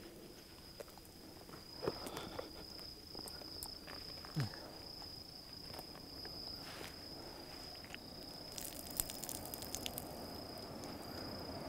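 Insects trilling steadily at a high pitch, with scattered clicks and light knocks as the freshly caught squid is handled on its jig.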